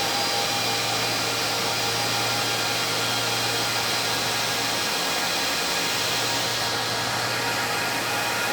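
Cooling fans of electronic equipment running with a steady whir, under a low electrical hum and several faint steady whines. The hum drops out for about a second around the middle.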